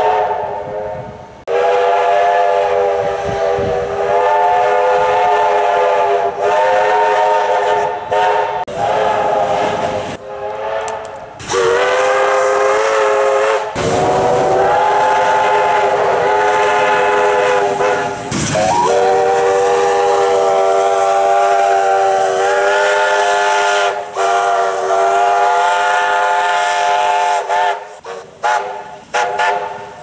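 Victorian Railways steam locomotive's multi-note chime whistle sounding a long series of blasts. Each blast lasts one to five seconds, with short breaks between them, and the longest runs through the middle.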